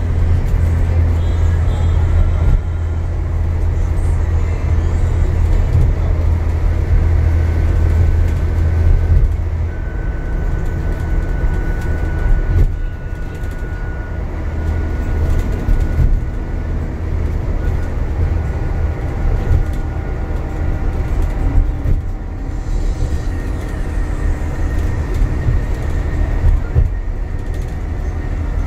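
Cabin noise of an Alexander Dennis Enviro400 MMC diesel double-decker bus travelling at speed: a steady low engine and road drone with tyre noise, and a faint high whine that comes and goes.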